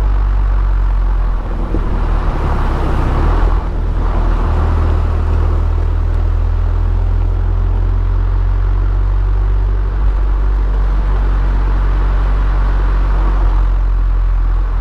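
Abarth Punto Evo with the EsseEsse kit, turbocharged 1.4-litre four-cylinder on its stock exhaust, running with a steady, even low engine note and no revving, a little louder in the first few seconds.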